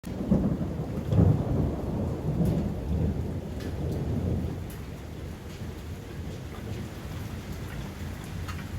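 Thunder rumbling over steady rain, loudest in the first few seconds with a couple of swells, then dying away about halfway through while the rain keeps on.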